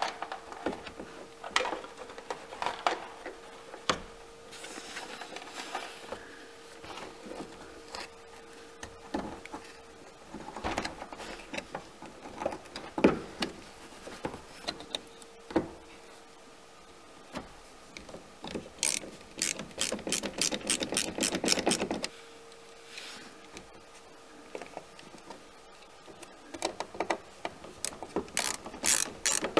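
Handling noise as wiring is tucked in and a boat's switch panel is pushed into place: scattered knocks and rubbing. Then a ratcheting screwdriver clicks rapidly in runs, from about nineteen seconds to twenty-two and again near the end, as the panel's screws are driven.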